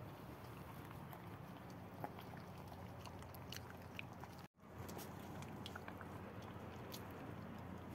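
Puppies suckling at their mother's teats: faint wet smacks and small clicks over a steady low background hum, with a brief dropout about halfway through.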